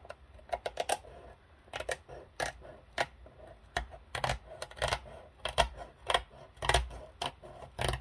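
Scissors snipping along the edge of a cardboard book cover, trimming off overhanging cover material. Short crisp cuts come about every half second, often two close together.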